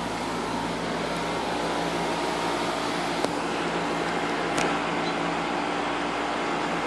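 Outdoor HVAC condensing unit running steadily, its fan and compressor giving an even rush with a low hum. Two short clicks come through about a third and two thirds of the way in.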